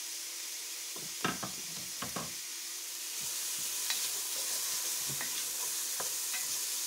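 Chopped onion sizzling in hot olive oil in a stainless steel pot, stirred with a wooden spoon that scrapes and knocks against the pot now and then. The sizzle grows a little louder about three seconds in.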